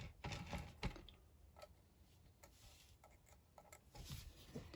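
Faint, scattered light clicks and taps from a rotating grid soldering board being turned and handled, about half a dozen in all.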